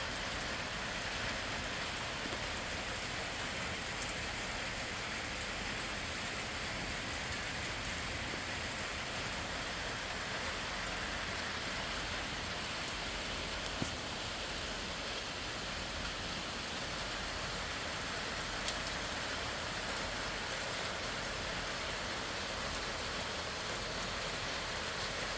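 Easy, steady rain falling: an even hiss, with the odd louder drop about 4, 14 and 19 seconds in.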